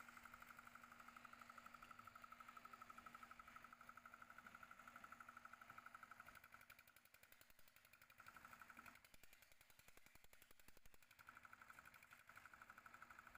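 Faint, steady rapid pulsing of a small engine running a drum concrete mixer, with its note changing for a couple of seconds near the end.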